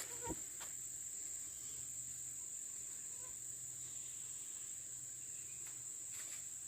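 Insect chorus, likely crickets, trilling in one steady high-pitched drone. A soft knock comes just after the start.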